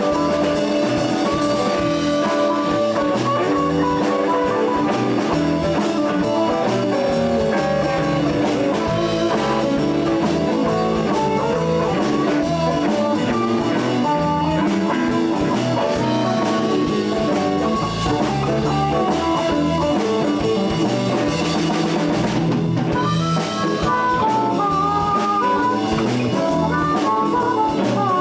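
Live blues band playing an instrumental passage: guitar over bass and a drum kit, with no singing.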